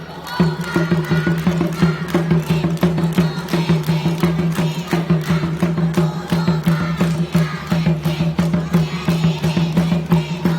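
Music with a steady held low note and fast, even percussion strokes.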